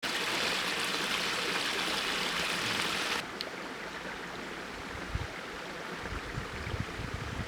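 Steady rush of running water that cuts off abruptly about three seconds in, giving way to quieter outdoor noise with occasional low thumps.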